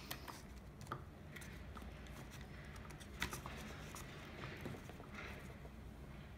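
Faint, scattered light clicks of a hex driver working a small screw into the plastic front bulkhead of a 1/8-scale RC monster truck.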